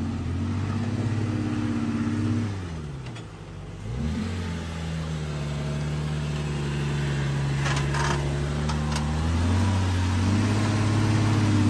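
Jeep Wrangler engine working up a steep dirt slope. The revs fall away about two and a half seconds in, pick up again a second later and hold steady, then climb again near the end as the Jeep passes close by.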